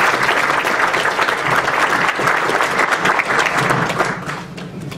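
An audience applauding, a dense patter of many hands clapping that dies away in the last second.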